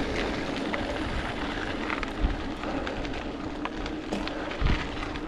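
Mountain bike rolling on a gravel road: steady tyre noise on the loose gravel, with scattered sharp ticks of stones and a few low bumps near the end.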